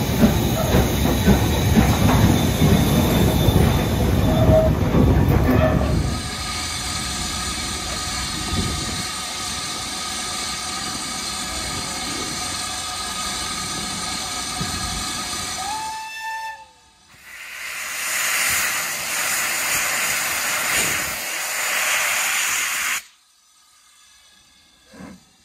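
Steam locomotives at a station platform. First comes a loud, uneven rumble and hiss from a standing LMS Stanier 8F. Then a steam whistle sounds, a steady chord of several tones held for about ten seconds that drops in pitch as it shuts off, followed by several seconds of loud steam hiss.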